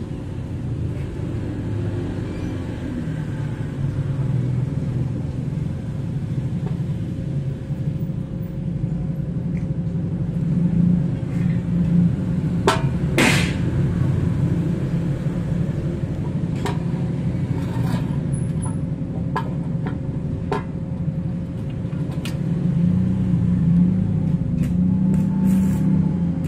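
Steady low hum of running machinery, with a few sharp metal clicks. About halfway through, a brief loud crackling hiss as the stick-welding rod touches the steel.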